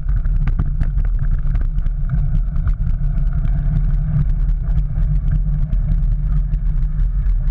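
Steady low wind rumble on the microphone of a GoPro riding on a moving bike, with many small clicks and rattles from the bike rolling over paving and asphalt.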